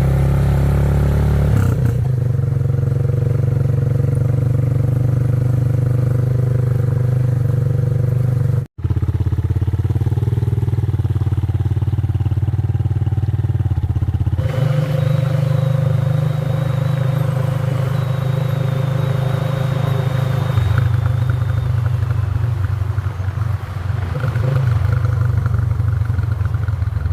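Motorcycle engine running steadily while riding along, with its note shifting about halfway through.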